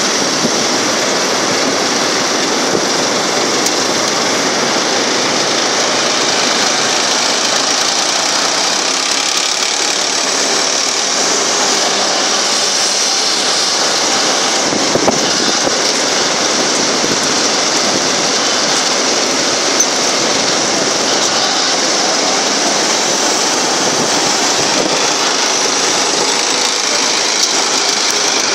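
A 2WD farm tractor's diesel engine running steadily as it works a front-loader grabber bucket, heard as an even, unbroken drone.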